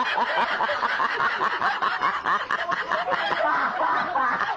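People laughing hard, several voices overlapping in quick repeated bursts of laughter.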